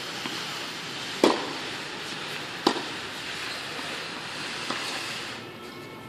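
Tennis ball knocks: two sharp ones about a second and a half apart and a fainter one near the end, over a steady hiss of background noise.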